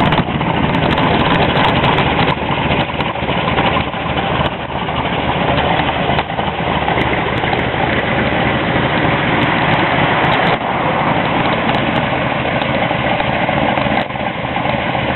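1969 Camaro SS's 396 big-block V8 idling steadily and loud.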